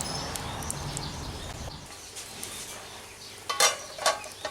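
Pot of pork-bone broth bubbling over a wood fire, then a few sharp metallic clinks against the pot near the end.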